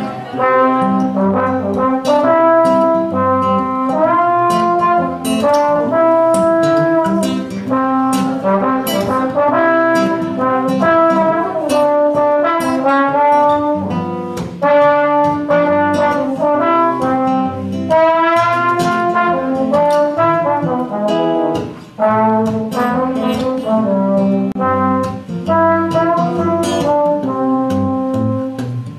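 Slide trombone playing a melody of held and moving notes over strummed acoustic guitar chords, the two improvising together in a steady rhythm. The music breaks off for a moment about three quarters of the way through, then picks up again.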